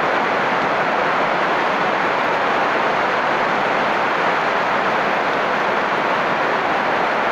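Heavy rain falling steadily on wet, muddy ground and leaves: a constant, even hiss with no breaks.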